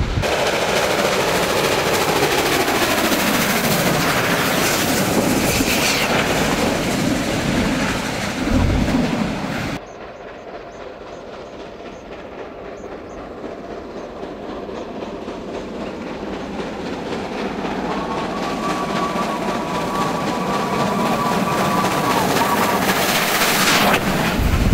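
A steam-hauled train, double-headed by South African class 15F and 25NC steam locomotives, rushes close past with its carriages clattering over the rails. After a sudden drop, the train is heard again further off, working hard and growing steadily louder as it approaches. A steady whistle sounds for about five seconds near the end.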